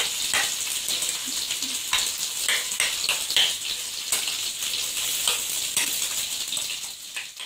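Steady sizzle of fish shallow-frying in oil on a tawa, with a spoon scraping and clicking against a glass bowl now and then as chopped onion, curd and salt are mixed.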